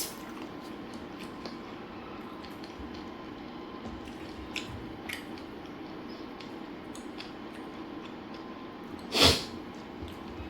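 A person eating chicken biryani with fried chicken: soft chewing and small wet mouth clicks over a steady low hum, with one louder short noise about nine seconds in.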